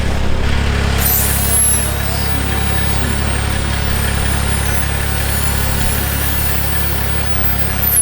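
Pressure washing rig's engine running steadily at a constant speed, a continuous low hum.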